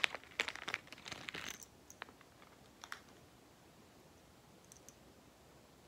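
Small packaging bag crinkling and rustling as it is handled and opened, with a run of sharp clicks over the first three seconds.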